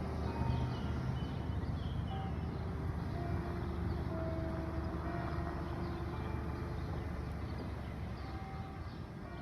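Church bells chiming a tune: single notes at different pitches, each ringing on for a second or more, over a steady low rumble.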